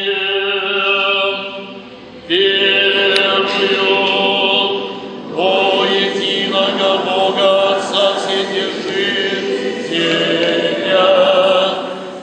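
Church choir singing Orthodox liturgical chant a cappella: several voices holding sustained chords in long phrases, with short breaths between phrases about two and five seconds in.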